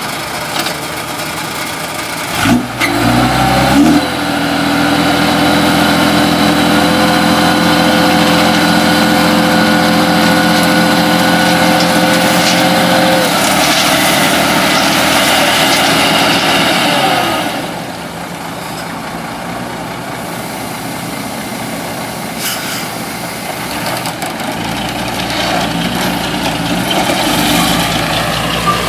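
Hino ten-wheel dump truck's diesel engine held at raised revs with a steady pitch while the hydraulic hoist tips the loaded bed. After about thirteen seconds the pitch slides down and the engine drops back to a lower, quieter running as the bed stays up.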